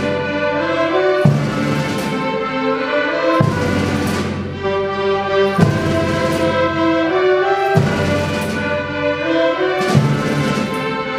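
Youth orchestra of violins, flutes, clarinets and saxophones with timpani playing a piece. A loud accented chord with a percussion hit comes about every two seconds, with held chords and moving lines between.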